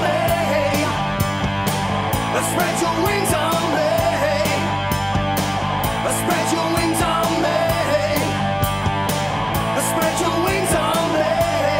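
Instrumental passage of a punk rock song: electric guitars over bass and drums, with a wavering lead guitar line and steady cymbal hits.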